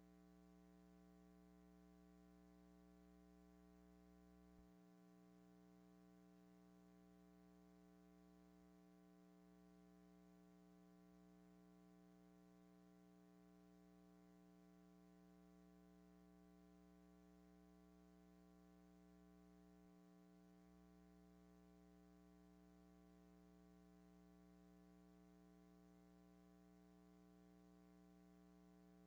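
Near silence: only a faint, steady electrical hum with light hiss.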